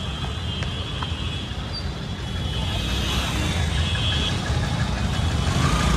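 Road traffic noise: a steady rumble of motor vehicles, growing slightly louder toward the end.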